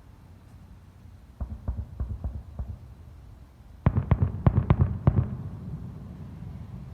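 Fireworks bursting in quick volleys: a run of about five sharp bangs, then a louder, tighter cluster of bangs about four seconds in, fading into a low rumble.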